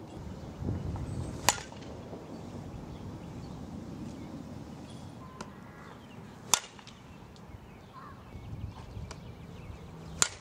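A sharp smack of a pitched softball about a second and a half in, then two crisp cracks of a softball bat hitting a tossed softball, about four seconds apart, the last near the end.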